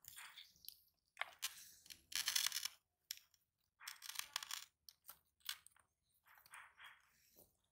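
Sulcata tortoises biting and chewing fresh vegetables and fruit, an irregular run of crisp crunches, loudest about two and a half seconds in and again around four seconds.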